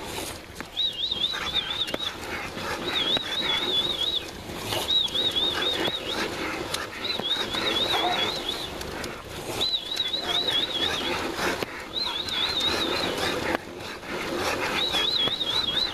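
Bulldog running on a slat treadmill: a steady rumble of the slats and rollers under its paws. Over it comes a high, wavering whine, repeated seven times about every two seconds.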